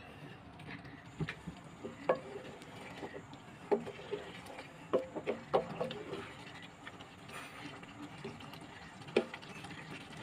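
Spatula stirring chicken karahi in a non-stick pot after water has been added to the gravy, with a wet stirring sound and irregular short knocks and scrapes of the spatula against the pot.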